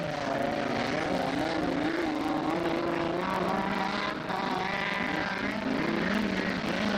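Autocross race car engines revving through dirt-track bends, their pitch rising and falling as the drivers work the throttle.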